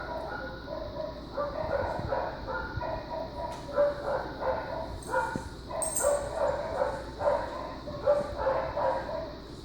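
A litter of German Shepherd puppies whining and yipping over one another, many short pitched cries overlapping with hardly a break.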